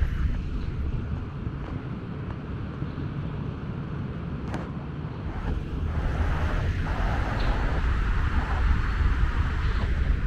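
Steady traffic noise from highway vehicles passing, a continuous rumble and tyre hiss that grows somewhat louder in the second half, with wind buffeting the microphone. A single sharp click about halfway through.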